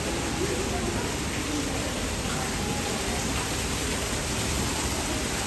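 Steady rushing of running water, like a water feature, with faint voices in the background.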